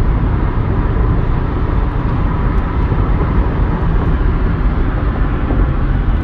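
Steady road and wind noise inside a car's cabin cruising at highway speed, around 72 mph, an even rushing drone heaviest in the low end.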